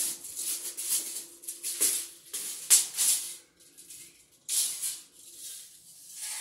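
Long tape measure being reeled in by hand, its blade rattling and zipping in a series of short runs with brief pauses, ending with a sharp click.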